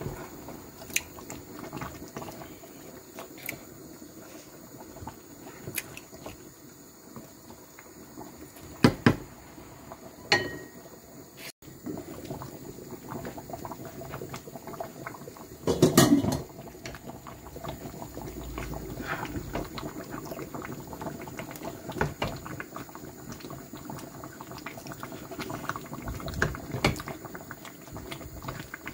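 Pot of soup bubbling at a steady boil, with continuous small pops and crackles. A few louder knocks and a longer clatter about halfway through come from a wooden spoon stirring in the pot.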